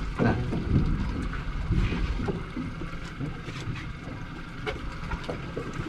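Steady low rumble and wind noise aboard a fishing boat at sea, with a few scattered knocks and clatters.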